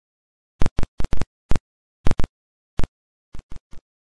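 Logo-intro sound effect: about eleven short, sharp hits in an uneven stutter, cut off cleanly with dead silence between them, the last few quieter.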